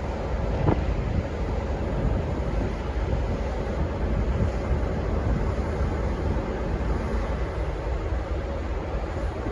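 N-class diesel locomotive running steadily with a deep rumble, with wind buffeting the microphone.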